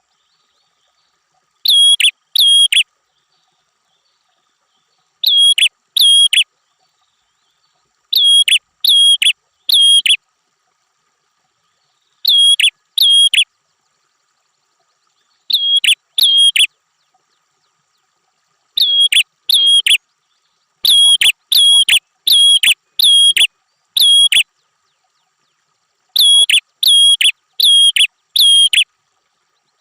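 Prinia (prenjak) calling: short, sharp, high chirps in quick runs of two to six notes, with silent gaps of one to three seconds between runs.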